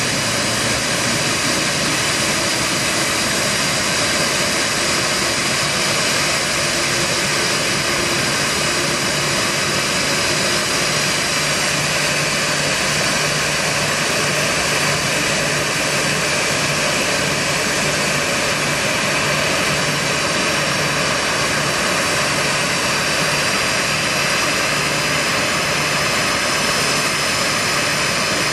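Boeing 737-800's CFM56-7B turbofan engine idling on the ground, a loud steady rush with a high whine that holds constant.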